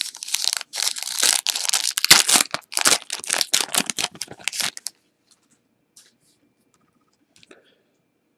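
A trading-card pack wrapper being torn open and crinkled, a dense run of rapid crackling rustles for about five seconds that then stops.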